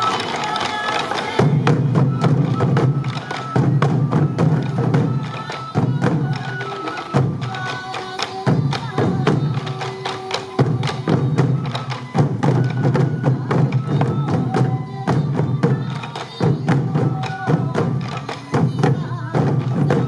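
Sansa odori festival drumming: many waist-worn taiko drums struck with sticks in unison, in a steady, driving rhythm that comes in short phrases. A traditional bamboo flute melody runs over the drums.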